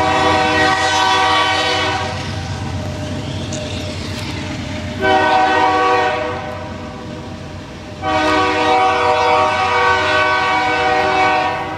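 Train horn sounding three long, steady blasts, the last the longest.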